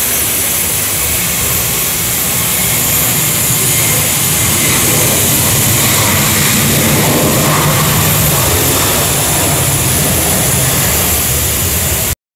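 CFM56 jet engines of a United Boeing 737-800 running on the runway for departure, a loud steady jet noise with a low rumble underneath. The sound cuts off suddenly near the end.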